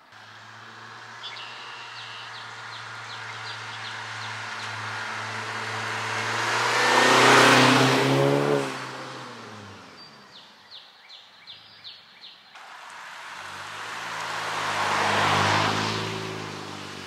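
2021 Honda Civic Sport hatchback with its mufflers deleted, driving past twice: a low, deep exhaust note from its four-cylinder builds as the car approaches, is loudest as it passes, then drops in pitch as it moves away. The muffler delete gives the exhaust its louder, deeper tone at low rpm.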